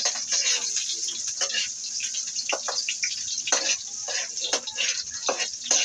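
Pork and garlic sizzling and crackling in oil in a metal pan on a gas burner, with a spatula stirring and scraping the pan.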